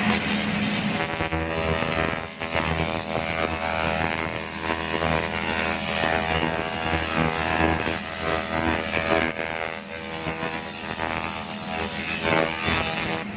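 A powered workshop machine running: a steady buzzing hum under harsh mechanical noise that rises and dips in loudness.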